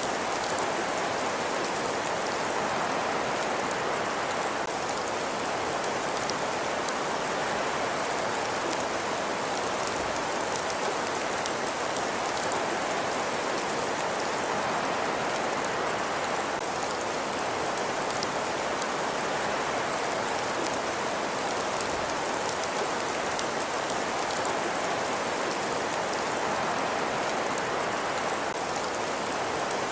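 Steady, even hiss of an ambience track, with many fine ticks scattered through it.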